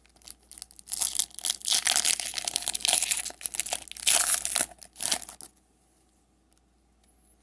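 Foil booster pack wrapper being torn open and crinkled by hand, a dense crackling for about five seconds that then stops.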